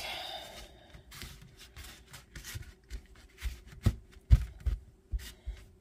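Hands working soft dumpling dough into a ball on a floured chopping board: soft rubbing and small taps, then a run of dull thumps in the second half as the dough is pressed and patted down.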